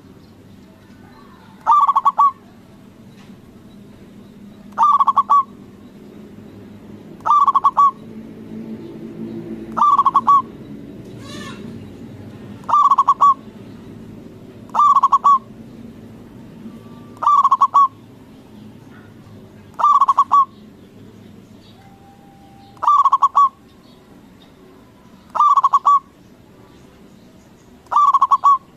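Zebra dove (perkutut) cooing its song, one short call repeated about every two and a half seconds.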